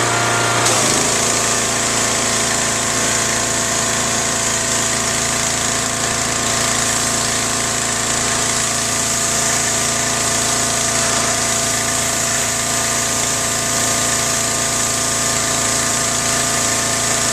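Gas-engine pressure washer running steadily, engine and pump under a constant hiss. Just under a second in the tone shifts and the hiss grows brighter, then holds steady.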